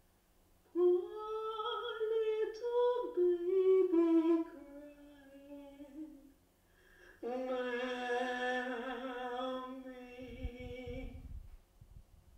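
A woman's voice singing unaccompanied: a short rising and falling phrase, then one long held note. Low, pulsing thuds begin near the end.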